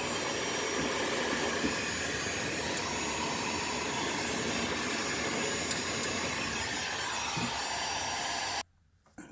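Electric heater blowing a steady rush of hot air onto ice packed on a refrigerator's freezer evaporator, melting it free. The blowing cuts off suddenly near the end.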